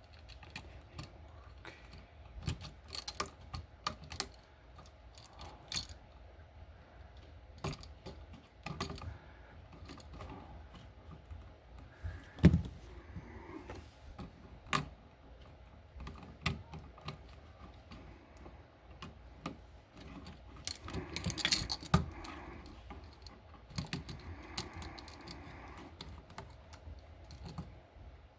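Hand tool clicking and scraping on a bare copper ground wire as paint is taken off it: scattered sharp clicks and taps, with a few longer scraping stretches in the second half.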